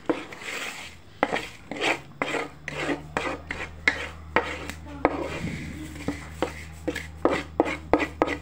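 Wooden spoon scraping across a wooden board, pushing small raw squares of trida pasta off into a pot, in repeated short strokes roughly two a second. A low steady hum sets in about two seconds in.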